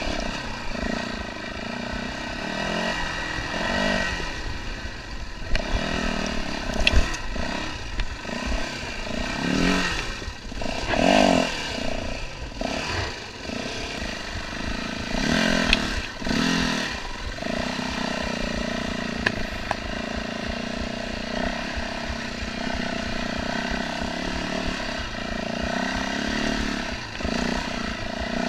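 Yamaha WR450F's single-cylinder four-stroke engine running at low revs over rough ground, swelling with several bursts of throttle and a few sharp knocks about six to seven seconds in. In the last third it settles to a steady, even note.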